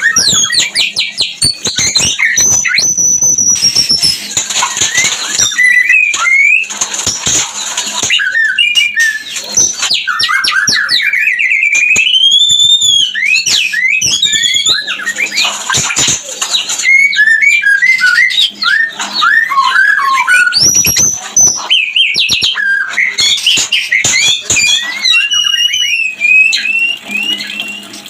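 White-rumped shama (murai batu) singing its mating-season song: a loud, almost unbroken run of whistled phrases, rising and falling glides and fast trills with rasping notes mixed in, broken by only brief pauses. This is the courtship (kawin) song, used as a lure to bring a captive shama into breeding condition.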